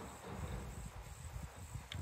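Quiet riverside ambience: a faint, steady high-pitched insect buzz over a low, uneven rumble, with a faint tick near the end.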